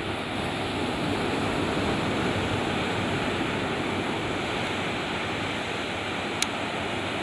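Steady rushing noise of ocean surf, with a single short tick about six and a half seconds in.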